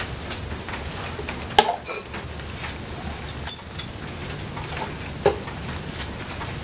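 A few separate metal clinks and taps of a wrench and bolts while a rear driveshaft axle is bolted up, one knock about halfway through ringing briefly, over a low steady hum.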